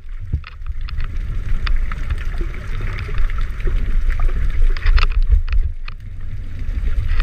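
Underwater sound of churning water near snorkelers: a heavy low rumble with a hiss of bubbles and scattered sharp clicks and crackles.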